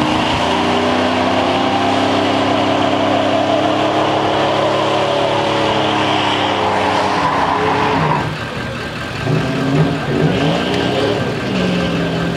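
SUV engine held at high revs during a tyre-smoking burnout, its pitch wavering slightly. About eight seconds in the revs fall away, then it revs up again in a few short blips before settling.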